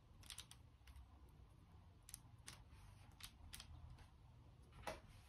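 Near silence with about ten faint, light ticks and taps scattered through it: a silicone pastry brush dabbing egg yolk onto balls of cookie dough on a parchment-lined tray.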